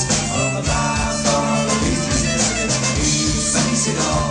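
Folk-punk band playing live through the venue's PA: amplified guitars, bass and drums with a steady beat.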